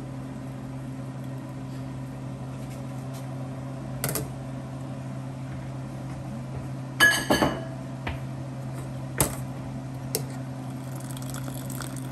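Wire-mesh skimmer clinking against a stainless saucepan a few times, the loudest a quick cluster of ringing taps about seven seconds in. Under it runs a steady electrical hum from the induction cooktop.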